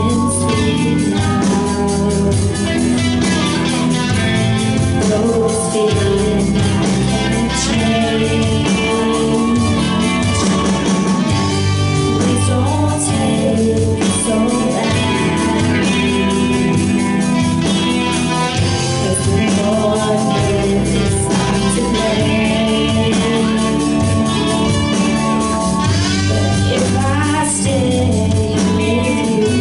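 Live rock band playing, with electric guitar and a singing voice over it.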